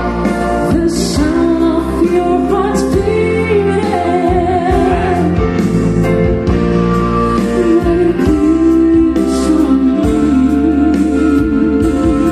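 A song with a singing voice over guitar, bass and a regular beat, played back through a pair of KEF Reference two-way floorstanding loudspeakers.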